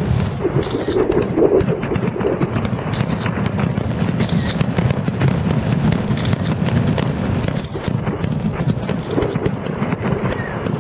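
Fireworks display: a steady rattle of many small sharp pops and crackles over a continuous low rumble.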